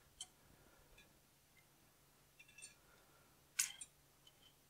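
A few faint metallic clicks and clinks from a David Brown 990 clutch pressure plate assembly being shifted and worked by hand, with one sharper clink about three and a half seconds in.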